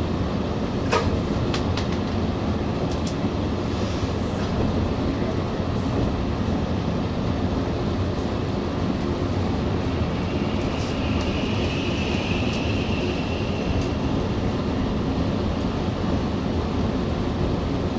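Running noise heard from inside a Shinano Railway Kita-Shinano Line local electric train as it pulls through the station: a steady low rumble of wheels and running gear, with a few sharp clicks about a second in and a faint high-pitched hiss for a few seconds near the middle.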